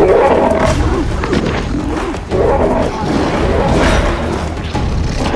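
Lions snarling and growling during a fight, loud and harsh, flaring up again a little over two seconds in, over dramatic music.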